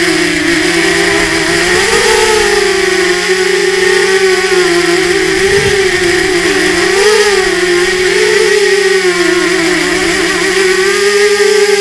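Electric motors and propellers of an RMRC Mudskipper 250 FPV quadcopter whining in flight, heard through the camera mounted on the drone. The pitch wavers up and down as the throttle changes.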